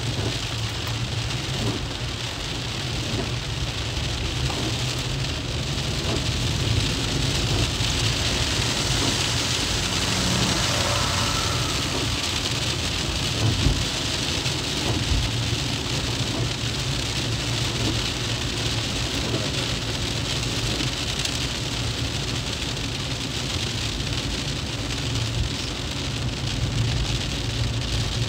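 Rain falling on a moving car's windshield and body, with the hiss of tyres on the wet road over a steady low engine and road rumble. Two brief knocks come about halfway through.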